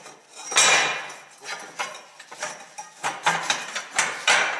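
Steel pipes and square steel tubing clanking against each other and the workbench as they are fitted together by hand: a string of metallic knocks and clatters, the loudest about half a second in and another cluster in the last second and a half.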